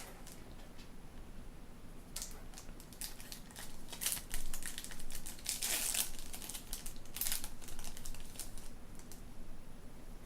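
Crinkling and rustling of a trading-card booster pack's plastic wrapper being handled, in clusters of scratchy strokes that are loudest in the middle.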